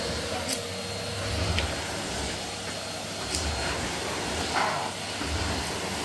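Numatic Henry tub vacuum cleaner running steadily as its floor tool is worked over a laminate floor, with an uneven low rumble and a couple of light clicks, about half a second in and just past three seconds.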